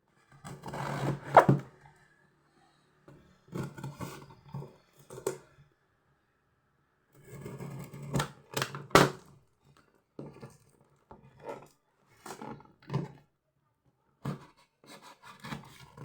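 Toy figure box being worked open by hand: irregular rustling and scraping of the packaging with a few sharp clicks, coming in bursts with short quiet gaps. The loudest handling is about a second in and again around nine seconds.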